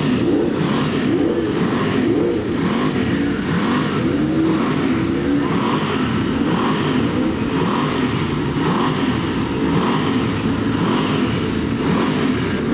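Racing motorcycle engines running at speed, their pitch rising and falling without a break.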